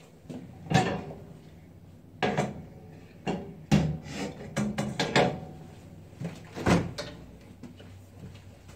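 About seven separate clanks and knocks of metal cookware being moved about on a gas range's grates, with a dull knock near the end as the refrigerator door is pulled open.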